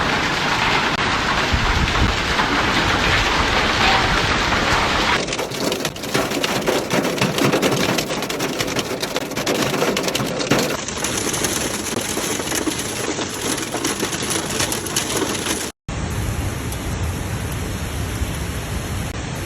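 Hailstones pelting down: a dense, steady clatter of countless small impacts over a rushing hiss, with a brief dropout near the end.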